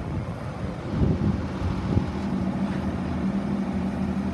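2006 CCC garbage truck's diesel engine idling steadily, with a couple of light bumps about one and two seconds in.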